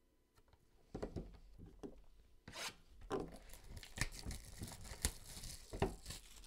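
Plastic wrapping being torn off a sealed trading-card box and crinkled, with clicks and taps from handling the cardboard box. It starts about a second in, with a loud tearing rush about two and a half seconds in.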